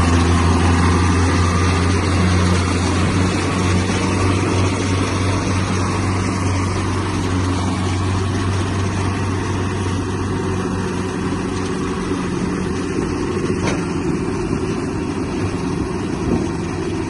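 Diesel engines of two Kubota tractors running steadily under heavy load as one tows the other and its loaded trolley. The low engine note slowly fades as they draw away.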